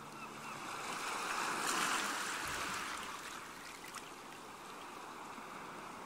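Ocean waves washing ashore: a wave swells to a peak about two seconds in and slowly recedes.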